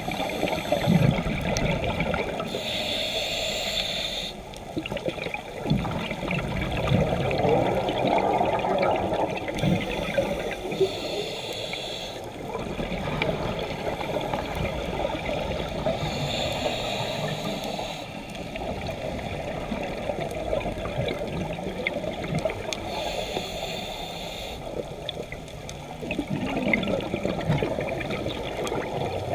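Scuba breathing through a regulator underwater, heard from the diver's side: a hissing inhale through the demand valve about every six to eight seconds, with the bubbling rush of exhaled air in between.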